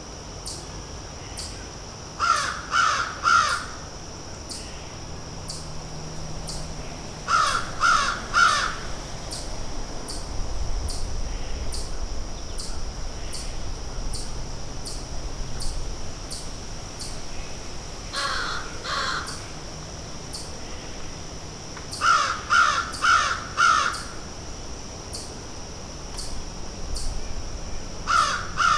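Crows cawing in short runs of two to four caws, five runs spaced several seconds apart.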